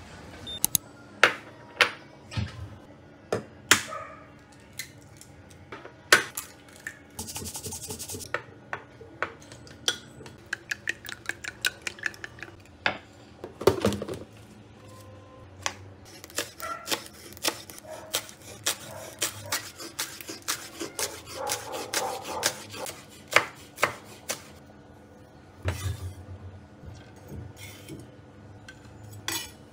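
Kitchen prep sounds: a kitchen knife chopping green onions on a wooden cutting board in runs of quick, even strokes, among knocks and clinks of the board and dishes being handled. A brief hiss comes about a quarter of the way in.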